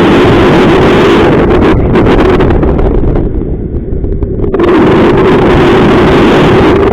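Strong wind buffeting the microphone in a loud, rough rush. It drops off for about a second and a half midway, then picks up again.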